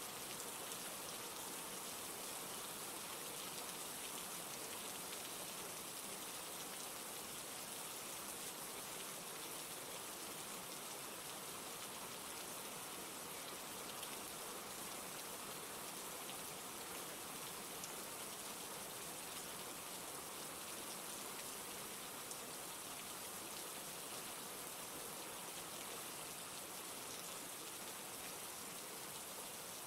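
Steady rain falling, an even hiss of many drops with faint scattered patters.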